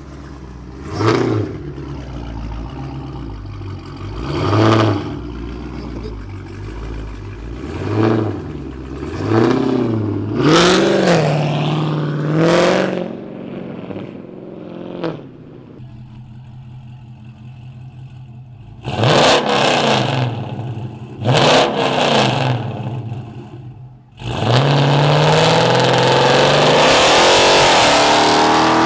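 Chrysler 300's 5.7 Hemi V8 with long-tube headers and a straight-pipe exhaust, revved in a string of short throttle blips with a rumbling idle between them, then two sharper revs. About 24 seconds in it goes to a long, loud full-throttle run with the pitch climbing.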